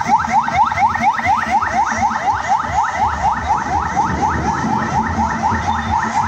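Police vehicle siren in fast yelp mode: short rising whoops repeating about six times a second.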